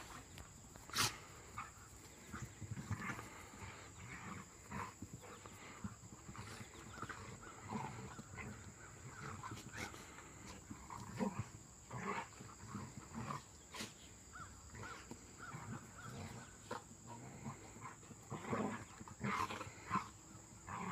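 A Rottweiler and a puppy play-fighting: short, irregular play growls and snarls, with a couple of sharp, louder sounds, one about a second in and one past the middle.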